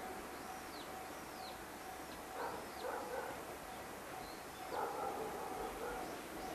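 A dog barking in two bouts, about two and a half and five seconds in, over a steady hiss, with a few short, high, arching chirps in the first half.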